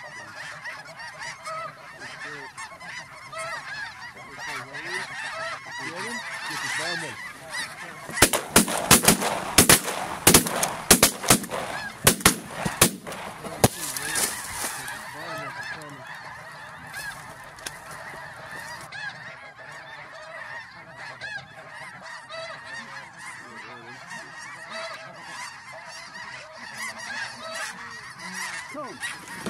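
A huge flock of snow geese calling overhead, a constant chatter of many overlapping honks and yelps. Between about 8 and 16 seconds in, a rapid run of loud sharp cracks and pops cuts through the calling.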